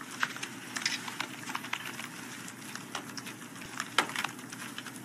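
Press-room clicking: scattered short, sharp clicks, a few a second, over steady low room noise.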